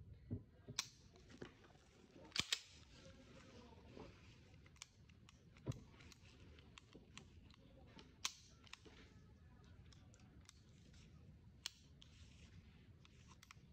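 Colt Commander 1911 pistol being worked by hand: scattered sharp metallic clicks from its mechanism, the loudest a quick double click about two and a half seconds in, with faint handling rustle between.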